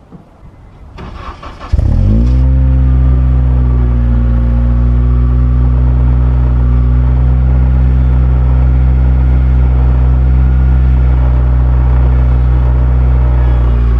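Acura RSX (DC5) 2.0-litre four-cylinder cold-started below freezing after sitting unused for a week: the starter cranks briefly about a second in, the engine catches with a quick rev flare, then settles into a steady idle, heard at the tailpipe.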